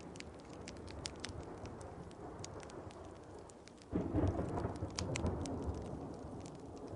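Steady rain with a wood fire crackling in frequent sharp pops. About four seconds in, a roll of thunder breaks in suddenly and fades over the next few seconds.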